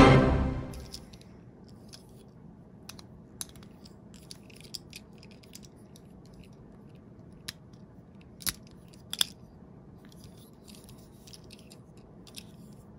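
Small clicks and taps of a Tomica die-cast fire-engine minicar being handled, its plastic boom arm and lamp head moved by hand, a few sharper ones about eight and nine seconds in. At the very start a loud ringing tone with several pitches dies away over about a second.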